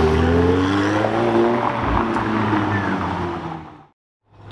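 McLaren 720S's twin-turbo V8 driving past, its engine note rising in pitch as it pulls away and then dying down. The sound fades out completely near the end.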